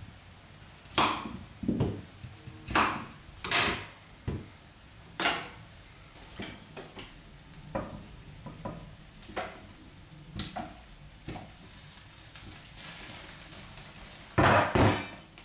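Kitchen knife chopping peeled potatoes on a wooden chopping board: a run of sharp knocks in the first five seconds, then lighter clicks and knocks as the pieces are tipped into a pot of water, and a loud clatter near the end as the wooden board is put down.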